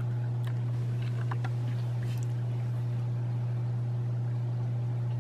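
Steady low engine drone, unchanging in pitch and level, with a few faint short chirps in the first two seconds.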